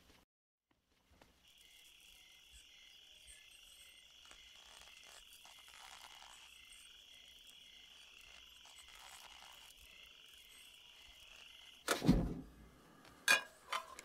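Crickets and other night insects chirring steadily with a pulsing chirp. About twelve seconds in, a sudden loud thump breaks in, followed by a sharp click.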